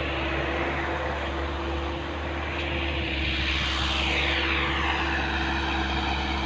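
Heavy diesel engine running steadily. A high whine falls in pitch about four seconds in and then holds.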